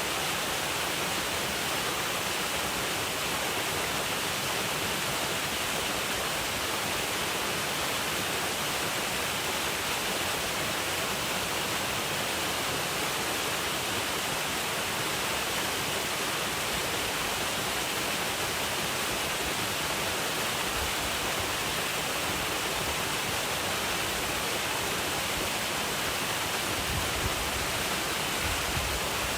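Waterfall: a steady rush of falling water with an even hiss, its sound unchanging throughout.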